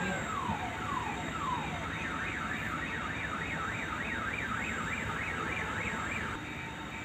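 Electronic car-alarm-style siren cycling through its tones. It gives repeated falling sweeps about twice a second, then from about two seconds in a fast up-and-down warble of about three to four wobbles a second, which stops shortly before the end.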